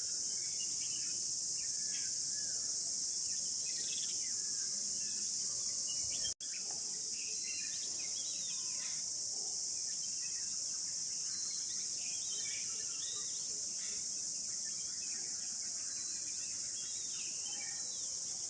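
Steady, high-pitched insect chorus from crickets or cicadas, with faint short bird calls over it. The sound drops out for an instant about six seconds in, then the same drone resumes.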